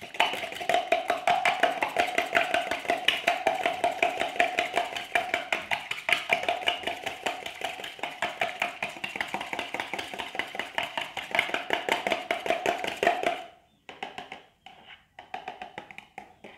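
A fork whisking a raw egg in a plastic cup: a fast, steady clatter of the fork against the cup's sides. About thirteen seconds in it stops abruptly, followed by a few lighter, slower taps.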